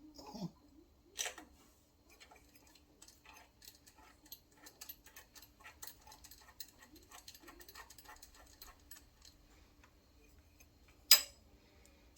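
Light metallic clicking and ticking from a hand wrench working the carburetor's mounting nuts onto the intake, several small clicks a second. One sharp metal clack about eleven seconds in.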